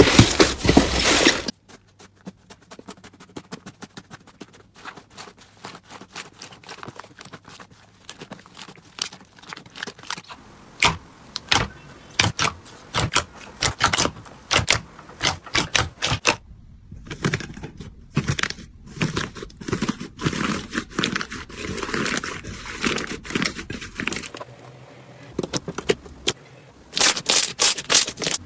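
Slime being squeezed and poked by hand, giving runs of sharp crackling and popping clicks, as with crunchy slime. The sound changes abruptly a couple of times, loudest just at the start and again near the end.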